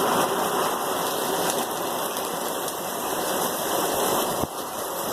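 Heavy tropical-storm rain pouring down in a steady, even wash, with one brief knock about four and a half seconds in.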